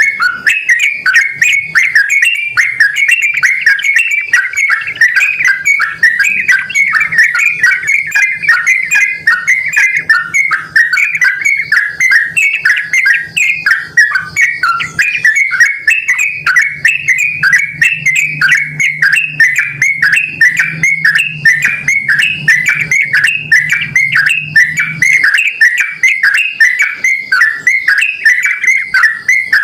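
Yellow-vented bulbul (trucukan) singing vigorously, a continuous stream of quick, bubbling notes.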